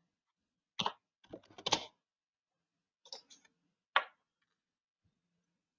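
A few computer keyboard keystrokes and clicks, scattered with pauses between them: a single tap, a quick little cluster, a few faint taps, then one last sharp click about four seconds in.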